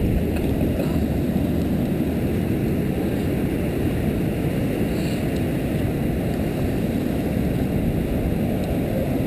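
Steady low rushing noise of wind buffeting the microphone, even throughout with no distinct events.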